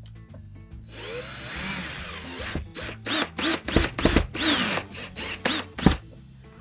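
Cordless drill driving a screw up into an RV ceiling. The motor whines for about a second and a half, rising and falling in pitch, then gives a string of short trigger bursts as the screw is seated, ending with a sharp click.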